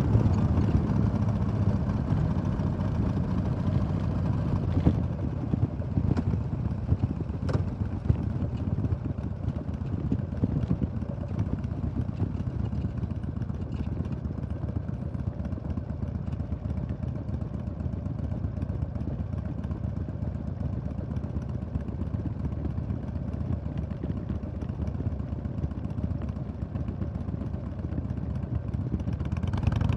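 2005 Harley-Davidson Sportster XL1200R's 1200 cc V-twin engine running steadily under way, a little louder near the start and end, with a few sharp clicks or knocks about five to eight seconds in.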